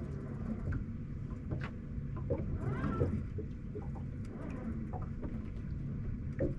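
A boat's motor runs with a steady low hum. Around three seconds in comes a short call that wavers in pitch, like an animal's or a bird's, and there are scattered light clicks.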